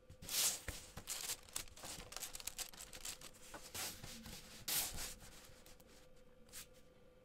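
LEGO plates rubbing and clicking against each other as a hinged plate sculpture is twisted by hand: a run of short plastic scrapes, loudest just after the start and again about four and a half seconds in.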